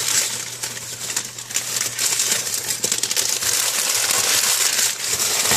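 Crumpled newspaper wrapping crinkling and rustling continuously as it is handled and pulled off a small cardboard box.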